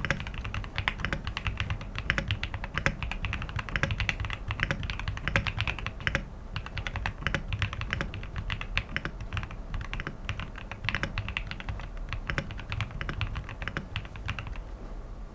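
Typing on a custom-built Akko ACR Top 75 top-mount aluminium mechanical keyboard fitted with Akko switches and keycaps: a rapid, dense run of keystrokes that stops about a second before the end.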